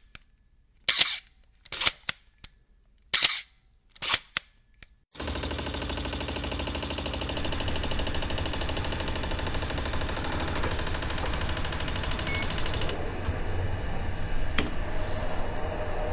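A quick run of about six sharp snaps or clicks, spaced unevenly. From about five seconds in they give way to the steady rumble and rush of a moving vehicle, heard from inside.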